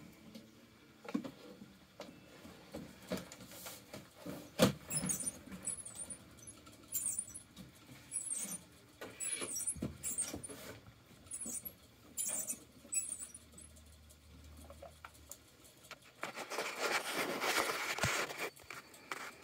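Live feeder rat squeaking in short, high-pitched chirps, among clicks and scrapes of handling against cardboard. Near the end comes a longer burst of rustling cardboard.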